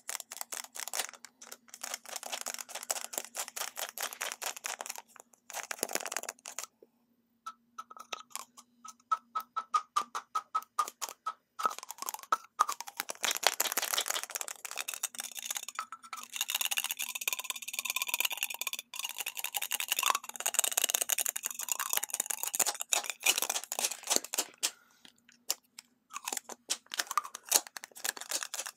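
Long fingernails tapping and scratching on plastic lipstick cases: rapid runs of sharp clicks with a few brief pauses, and stretches of denser scratching.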